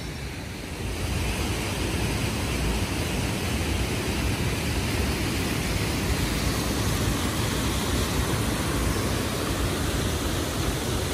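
Rushing water of a rocky stream tumbling over boulders: a steady rush that gets louder about a second in.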